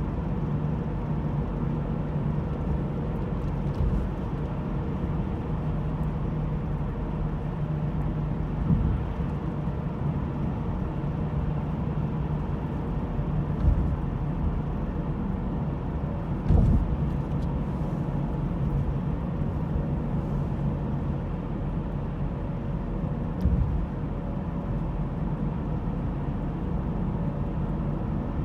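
Inside the cabin of a 2010 Honda Civic LX coupe on the move: its 1.8-litre four-cylinder engine and road noise run steadily with a thin, steady whine over them, broken by four short thumps from the road. The owner suspects the power steering pump for the whine, which comes with acceleration.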